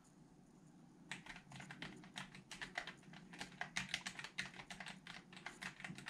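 Fast typing on a Cooler Master SK650 mechanical keyboard with Cherry MX switches: a quick run of many keystrokes starting about a second in.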